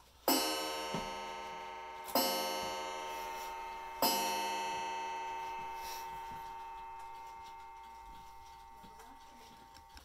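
31-day pendulum wall clock striking the hour on its gong: three strokes about two seconds apart, each ringing on and slowly fading.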